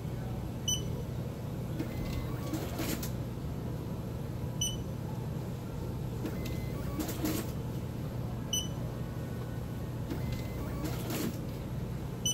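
Lottery ticket checker beeping as winning tickets are scanned: four short, high beeps about four seconds apart, over a steady low hum.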